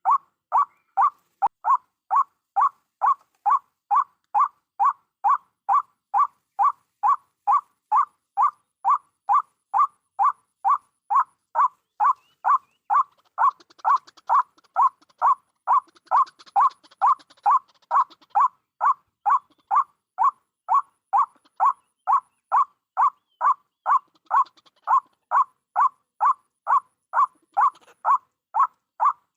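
White-breasted waterhen call repeated over and over at a very even pace, about two calls a second. The call is played from a bird-lure recording to draw waterhens to the snares.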